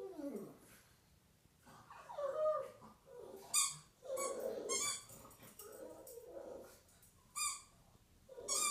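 A pug howling and whining in drawn-out, wavering calls, with a squeaky toy squeaking sharply a few times between them.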